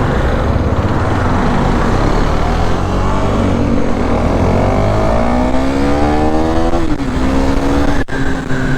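Motorcycle engine pulling hard, its pitch climbing for about three seconds before dropping sharply at a gear change, then running on steadily, under heavy wind rumble on the helmet-mounted microphone.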